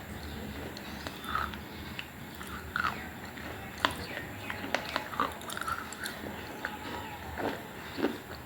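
Close-up eating sounds: a person chewing and biting food, with irregular small clicks and wet mouth smacks.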